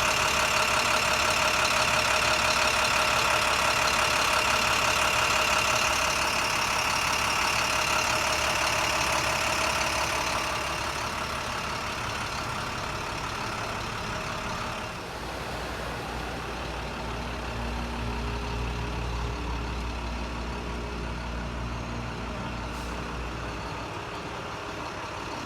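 A steady mechanical hum with several steady tones, which fades about ten seconds in; a lower hum takes over from about fifteen seconds in.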